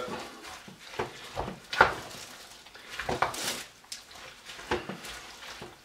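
Wooden spoon stirring a thick bean and ground-beef mixture in a plastic-lined slow cooker crock: irregular soft knocks and scrapes at uneven intervals.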